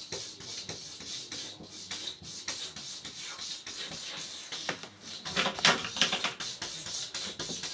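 Cat chewing and crunching a raw chick: a steady run of small crackling clicks, with a louder flurry of them about five to six seconds in.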